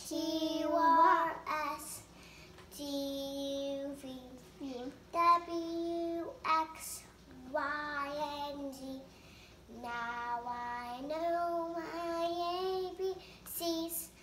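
A young girl singing unaccompanied: several phrases of long held notes with short breaks between them.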